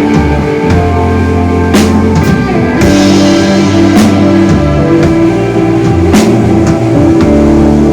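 Live rock band playing instrumentally: sustained bass and guitar notes changing pitch over a drum kit, with a cymbal hit about every two seconds.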